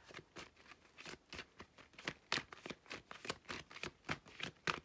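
A deck of oracle cards being shuffled by hand: an irregular run of short, crisp card clicks, several a second.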